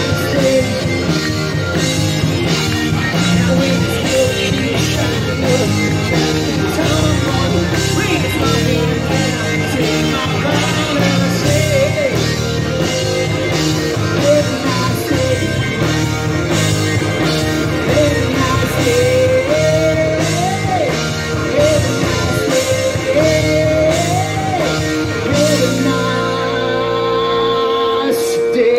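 A live rock band playing loudly: a lead singer over electric guitars and a steady drumbeat. A little before the end the drumbeat stops and the band holds sustained notes.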